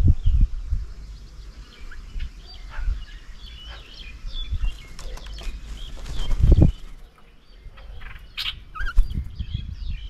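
Several small birds chirping and calling in short, scattered notes, with a few low rumbles and thumps, the loudest about six and a half seconds in.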